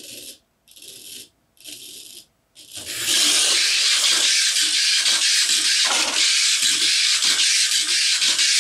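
Four short hissing bursts, then from about three seconds in the loud, steady rattling rush of a home-built Mini 4WD car with a drone brushless motor racing round a plastic Mini 4WD track, with a clatter about three times a second.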